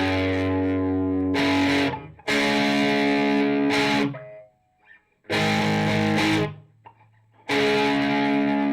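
Ibanez S470 electric guitar played through an amp: a series of chords, each ringing one to two seconds and then stopped, with short pauses between them.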